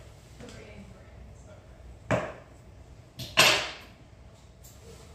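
Grooming shears working in a schnauzer's coat: two sharp snips, one about two seconds in and a slightly longer one about a second and a half later.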